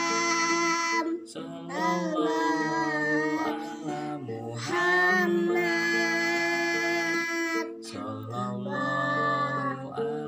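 A young voice singing a sholawat, devotional praise of the Prophet, in long held phrases over backing music, with short breaks between four phrases.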